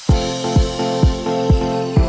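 Background electronic music with a steady kick-drum beat, about two beats a second, under held chords; it kicks in sharply at the start after a rising swell of hiss.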